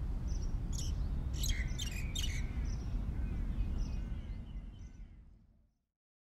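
Outdoor ambience: a steady low rumble with a few birds chirping, most of them about one to two and a half seconds in, all fading out about five seconds in.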